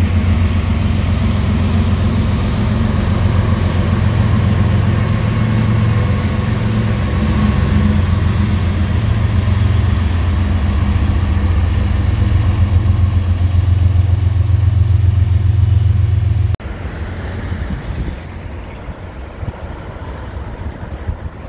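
CSX freight train passing overhead on a railway bridge: a loud, low rumble of steel wheels on rail with a rapid clatter, along with a diesel locomotive's engine as it goes by. About three-quarters of the way in, it cuts suddenly to the quieter rumble of a train's cars rolling over a street overpass.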